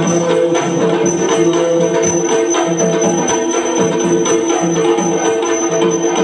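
Yakshagana ensemble music: maddale and chande drum strokes with jingling metal percussion over a held melodic line.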